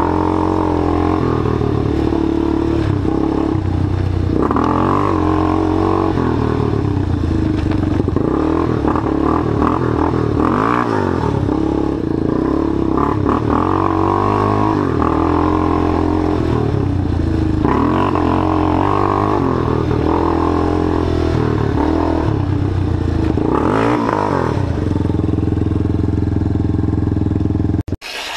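Rebuilt ATV's single-cylinder engine running while being ridden, revving up and down repeatedly. It cuts off suddenly near the end.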